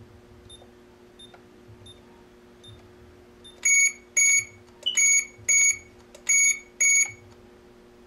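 AAS GSM cellular alarm system beeping while a second wireless entry keypad is activated: a run of faint, evenly spaced short beeps, then six loud electronic beeps in the second half.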